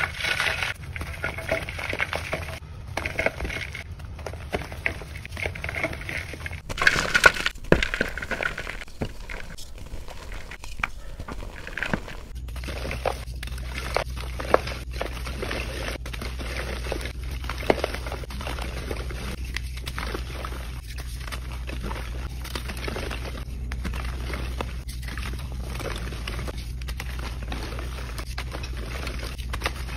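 Blocks of reformed gym chalk being squeezed and crushed by hand, crumbling with many crisp crunches and crackles, with the densest burst of crunching a few seconds in. From about twelve seconds in a low steady hum runs underneath.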